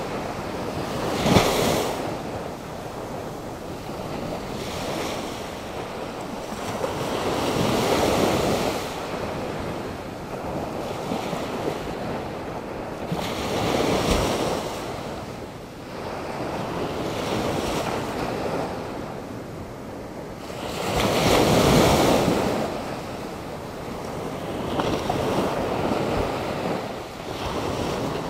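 Atlantic Ocean surf: waves breaking and washing up the shore in repeated swells every six to eight seconds, over a steady rushing background. The loudest wave breaks about two thirds of the way through.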